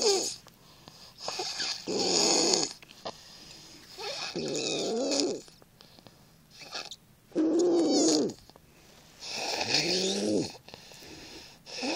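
A six-year-old child snoring: about five snores, one on each breath every two to three seconds, each lasting about a second with a pitch that bends up and down.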